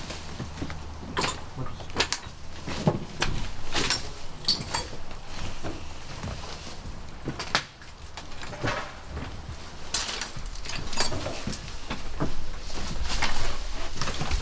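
Irregular footsteps with scattered knocks, bumps and clatter as people walk into a building through a doorway.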